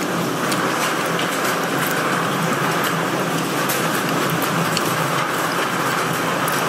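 Steady rush of storm wind and heavy rain, with faint scattered ticks of raindrops.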